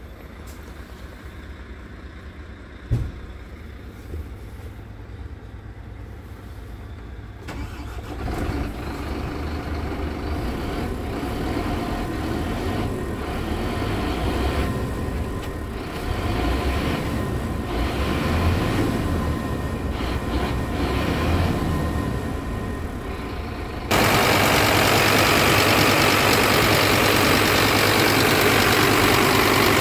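Scania P truck's diesel engine running, heard from inside the cab, growing louder with a few short swells like brief revs. About 24 s in, it jumps to a much louder, steady idle heard close up at the open engine bay.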